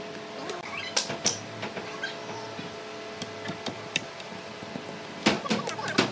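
Knocks and clatter of heavy hardwood pieces being handled and set onto a wooden table base, a couple of single knocks early and a quick cluster of knocks near the end, over a steady background hum.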